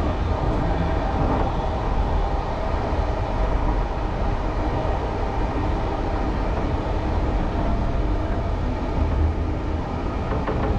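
Passenger train running, heard from inside the carriage: a steady, even rolling noise, mostly low in pitch.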